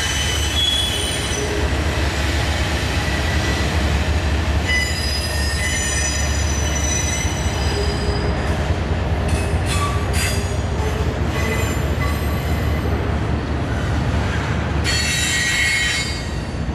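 Double-stack intermodal container train rolling past, a steady low rumble with the wheels squealing in thin high tones that come and go. A short run of clicks from the wheels about halfway through.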